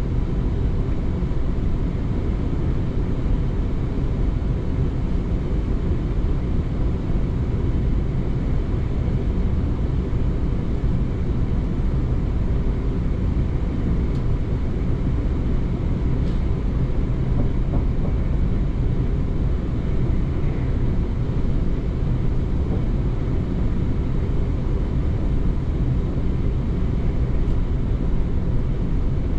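South Western Railway train running steadily along the line: a continuous low rumble of wheels and motors on the rails, level throughout with no stops or announcements.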